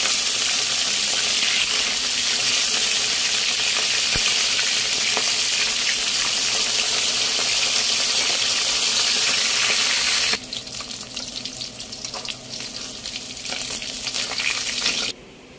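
Whole fish frying in hot oil in a wok: a steady, loud sizzle. About ten seconds in it drops to a quieter crackle and spatter, then cuts off shortly before the end.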